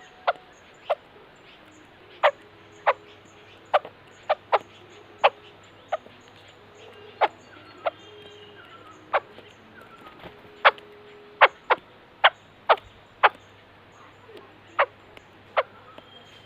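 White-crested laughingthrush giving about twenty sharp, very short call notes at irregular intervals, with fainter whistled bird notes in the background.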